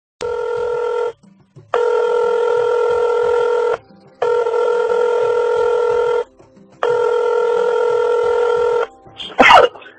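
Telephone ringing tone of an outgoing call: a steady, buzzy pitched tone about two seconds on and half a second off, heard four times, the first cut short. A loud short burst near the end.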